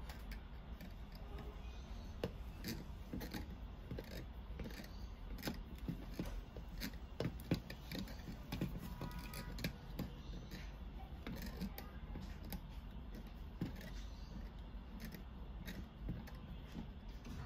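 Small irregular clicks and taps of pliers gripping and knocking against the plastic and metal parts inside an opened HIFU handpiece, over a low steady hum.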